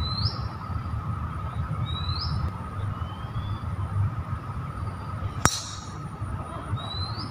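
One sharp crack of a driver striking a golf ball off the tee about five and a half seconds in. A bird repeats a short rising call three times: at the start, about two seconds in and near the end.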